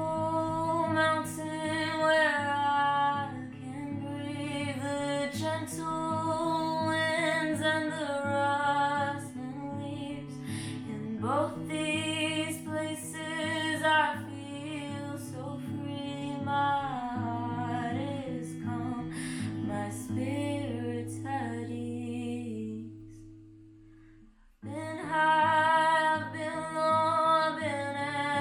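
A song: a woman singing a melody over strummed acoustic guitar. About 23 seconds in the music fades to nearly nothing, then comes back in full a second or so later.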